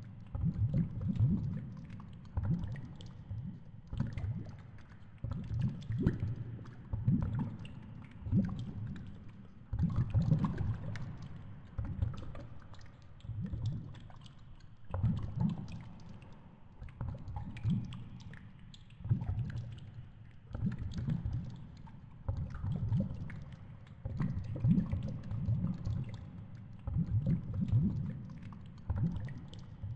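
Underwater water noise picked up through a GoPro's waterproof housing as it hangs on a fishing line: a low rushing rumble that swells and fades about every second and a half, with scattered faint clicks.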